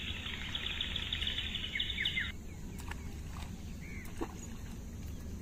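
Birds chirping and chattering densely, cutting off abruptly about two seconds in. After that only a few single chirps and faint clicks remain over a low outdoor hum.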